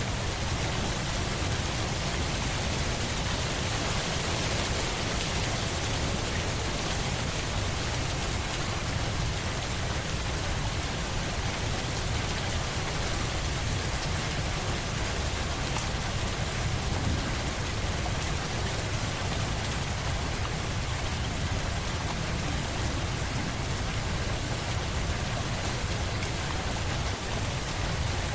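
Steady rain falling on a surface, an even hiss of drops with no let-up.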